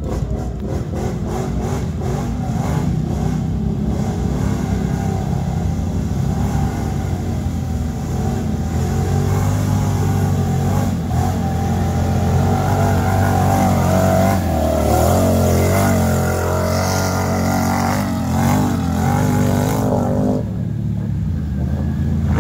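ATV engine revving hard as the quad ploughs through deep mud and water. The revs rise and fall, and it gets louder as the quad comes close in the middle, then drops back as it moves away.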